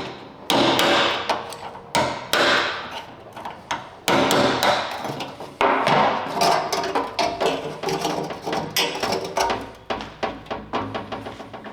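Hammer blows on metal at an uneven pace, a handful of heavy strikes among many lighter taps with a short ring after each, while working the sending unit out of an old pickup's steel fuel tank.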